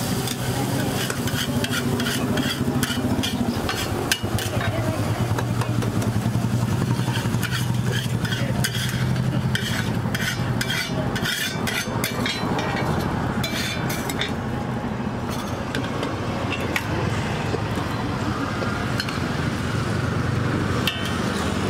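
Metal spatula scraping and tapping on a hot iron tawa, a dense run of quick scrapes in the first half, with oil and egg sizzling on the griddle. A steady low hum of engines or traffic runs underneath.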